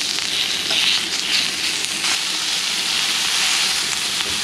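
Strips of beef sizzling on a hot round griddle pan over a portable gas burner: a steady, fluctuating hiss with a few small pops.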